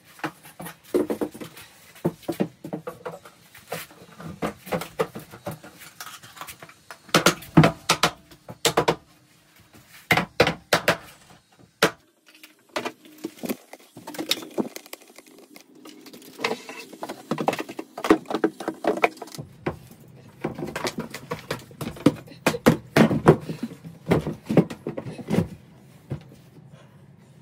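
Wooden tongue-and-groove sauna boards being handled and knocked into place: irregular clusters of knocks, taps and wooden clatter.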